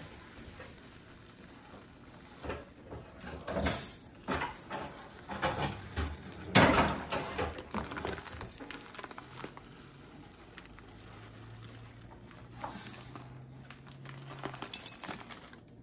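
Dry brown rice poured scoop by scoop from a measuring cup into the stainless steel inner pot of an electric pressure cooker: a series of short separate pattering pours of grains hitting the metal, the loudest about halfway through.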